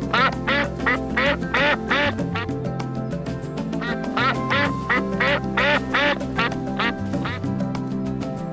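Duck quacking in quick runs of short quacks, about three or four a second, with a pause about two seconds in before a second run, over background music.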